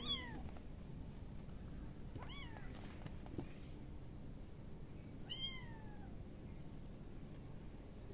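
Tiny kitten mewing: three high, thin mews about two to three seconds apart, each rising then falling in pitch, the last one longer and drawn out.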